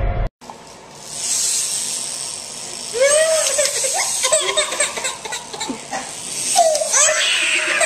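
A baby crying in short, sobbing wails that begin about three seconds in and come again near the end, over a steady hiss.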